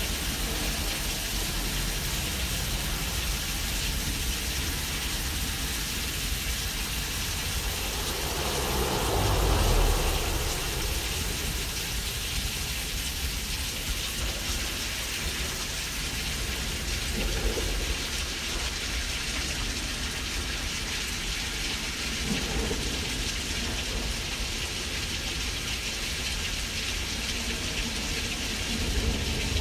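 Simulated thunderstorm: a steady rain-like hiss, with a deep rumble of thunder swelling to a peak about nine seconds in. Smaller rumbles come later, the last near the end.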